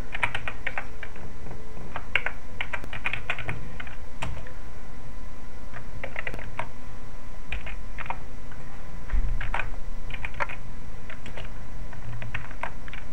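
Computer keyboard typing in short bursts of keystrokes separated by brief pauses.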